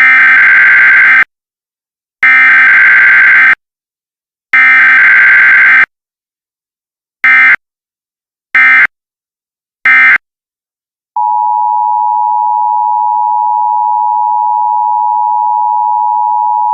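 Emergency Alert System alert opening: three data bursts of about a second each, then three short bursts, the buzzing digital SAME header tones. About eleven seconds in, the steady two-tone EAS attention signal starts and holds.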